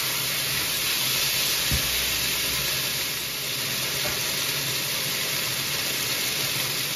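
Beef strips, red pepper and onion sizzling steadily in an oiled wok as they stir-fry, with one soft knock about two seconds in.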